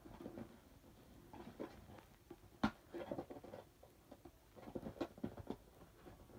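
Cardboard packaging being handled and fiddled with: scattered light taps, scrapes and rustles, with one sharp knock a little under three seconds in.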